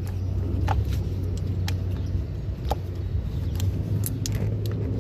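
Light clicks and taps of parts being handled as a new intake Vanos solenoid is fitted into the engine, over a steady low hum.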